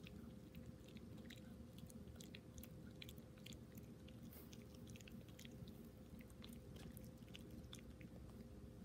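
A small dog chewing a treat: faint, irregular clicks of its teeth and jaws, several a second, over a low steady room hum.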